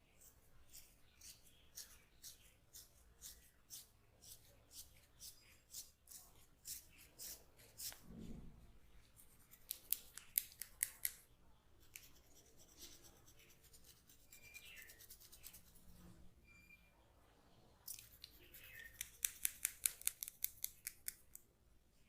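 Steel scissors snipping crisply, at about two to three snips a second at first, with a soft low thump about eight seconds in. Then come two quicker, louder flurries of snips, one about ten seconds in and one near the end.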